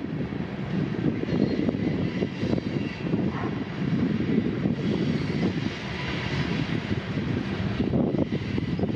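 Strong wind buffeting the microphone, with a steady engine drone underneath.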